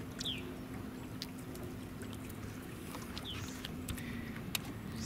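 Quiet open-boat ambience: water lapping and trickling against the hull under a faint steady hum, with a few light clicks and knocks from handling.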